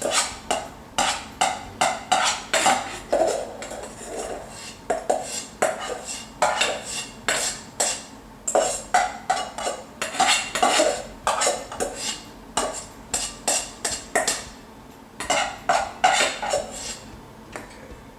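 A metal knife scraping and knocking against the bottom of a cooking pan in quick repeated strokes, about two or three a second, working loose cooked quinoa stuck to the pan.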